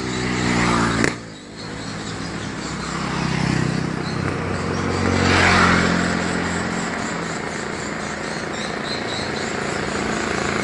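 Motor vehicle engines running and passing, their pitch rising and falling in several swells, with a sharp click about a second in. Faint, rapid high chirps come and go in bursts.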